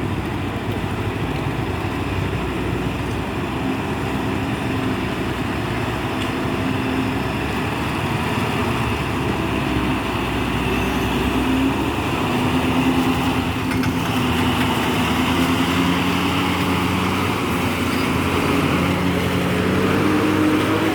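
Motor vehicle engine running steadily, its pitch drifting slowly up and down, a little louder in the second half.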